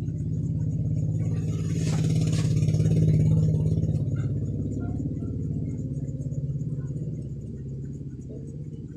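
A motor vehicle's engine running close by, swelling to its loudest about three seconds in and then slowly fading, as if it drives past.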